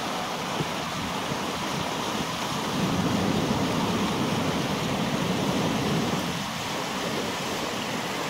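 Fast tidal rapids rushing steadily through a narrows as a continuous whitewater roar, swelling a little louder for a few seconds in the middle.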